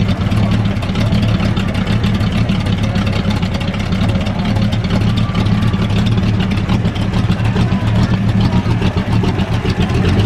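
A hot rod's engine idling steadily and loud.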